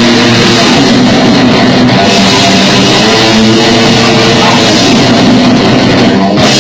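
Grindcore band playing full-on: distorted electric guitar and drum kit at high volume. The sound breaks off briefly near the end, then a guitar chord rings on.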